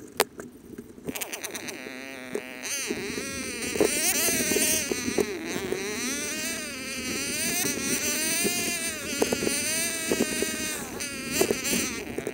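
Dirt bike engine running as it climbs, its revs rising and falling, with scattered knocks and rattles.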